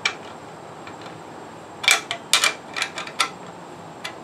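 Hand wrench clicking against a half-inch nut as the cover nuts of a pool booster pump are tightened snug: a single click at the start, then a quick run of about eight sharp metal clicks about two seconds in.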